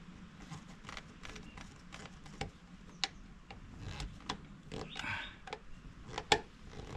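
Light, irregular clicks and ticks of a screwdriver and electrical wires knocking against a plastic light-fixture mounting box as the wires are tucked in and worked into place.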